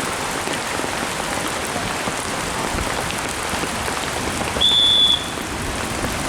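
Heavy rain falling steadily, with one short, shrill whistle blast a little after halfway, the loudest sound: a referee's whistle.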